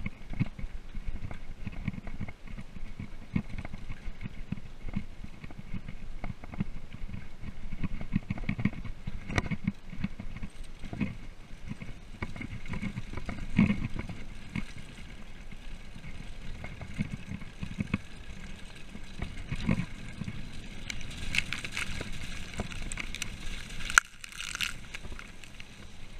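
Mountain bike rattling and jolting over a rough gravel road, a constant run of irregular knocks and clatter. Near the end the noise cuts out for a moment, then comes a single sharp click.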